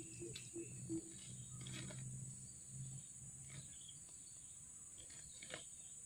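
Steady high-pitched insect drone, with a few faint clicks and rustles as thin bamboo sticks are handled.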